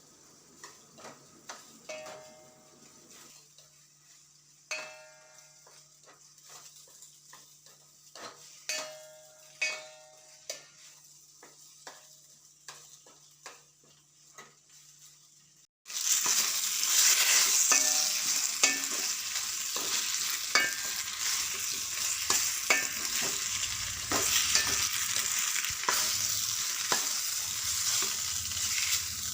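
A metal spoon clinking and scraping in a pan as boiled pasta is stirred into a tomato masala. Each clink rings briefly. About sixteen seconds in, a loud frying sizzle starts suddenly, with the stirring scrapes going on through it.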